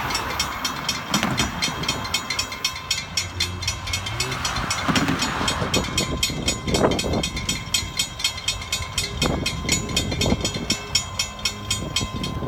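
Railroad grade-crossing warning bell ringing in a rapid, even series of strokes while the crossing gates come down, signalling an approaching train.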